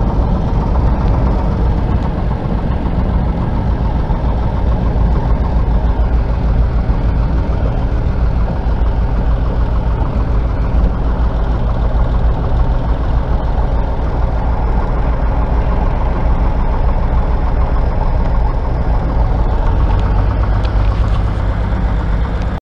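Van's RV-10 light aircraft's piston engine and propeller running steadily, heard from inside the cabin. The low note shifts slightly about twenty seconds in.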